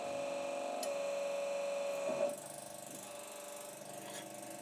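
Press brake cycling as it bends a laser-cut flat steel part. Its motor whines steadily, with a click about a second in and a short louder sound just after two seconds, after which the whine drops to a quieter hum.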